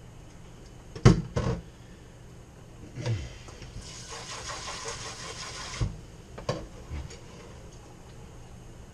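Knocks and clatter of kitchen items being handled, with a kitchen tap running for about two seconds midway, switched on and off abruptly.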